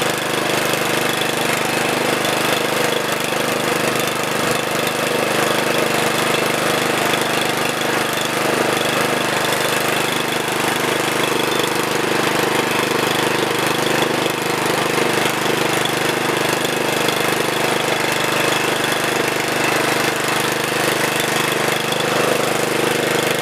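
Walk-behind brush hog's engine running steadily while the machine is pushed across grass.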